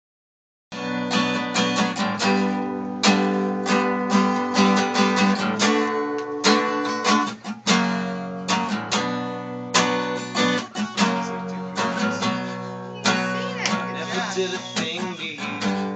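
Acoustic guitar strumming the chords of a song's instrumental intro, starting after a brief silence.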